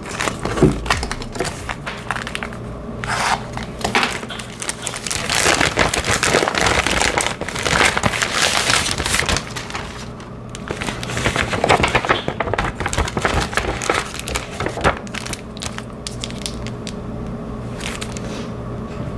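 Cardboard boxes and plastic packaging being handled during unpacking: crinkling plastic, sliding cardboard and paper, and scattered sharp clicks and taps. Busiest in the middle, quieter over the last few seconds.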